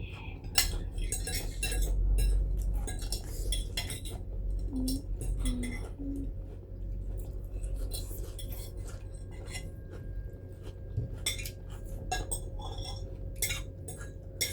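Cutlery clinking and scraping against plates during a meal, in scattered short clicks.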